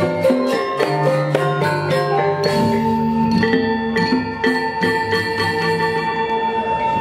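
Balinese gamelan ensemble playing: bronze kettle gongs and metallophones struck with mallets, with kendang drums. Fast ringing strokes thin out about halfway in to slower, sustained ringing tones over a deep low hum.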